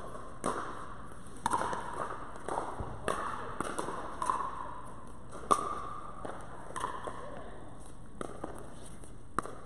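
Pickleball paddles striking a plastic ball during a doubles rally: a series of sharp pops at uneven spacing, ringing briefly in a large indoor court hall.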